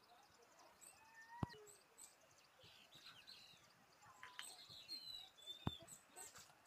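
Faint bird chirps and short whistled calls at varying pitches. Two sharp clicks stand out, one about a second and a half in and one near the end.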